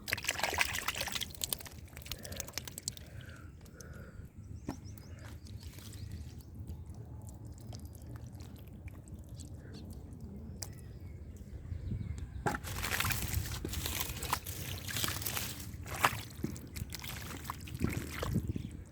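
Muddy water sloshing and splashing as hands work through it, with irregular bursts that grow busier and louder about two-thirds of the way in.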